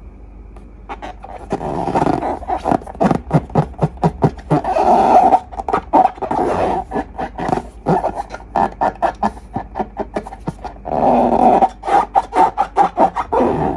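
Wet slime squelching and crackling as it is squeezed and worked by hand, with rapid runs of small sticky pops and air-bubble clicks.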